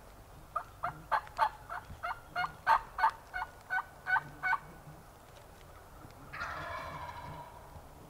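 Turkey calls: a run of about fourteen short, sharp notes over some four seconds, then one longer call about a second long, starting just past six seconds in.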